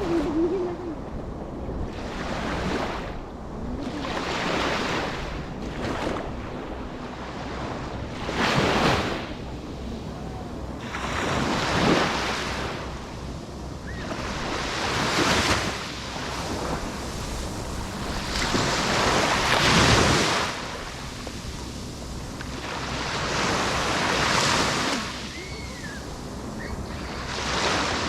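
Ocean waves breaking and washing up on a shore, a new surge every few seconds, each swelling and then falling away.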